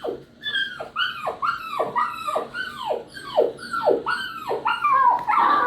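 Puppy crying: a quick run of short, high yelping cries, each sliding down in pitch, about two a second, ending in a louder, longer cry.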